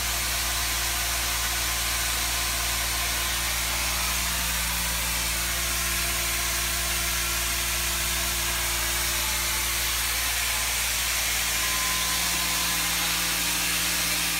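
Steady drone and hiss of machinery running evenly: the engine-driven power unit of a hydraulic rock splitter, working while the splitter forces a crack open in the rock.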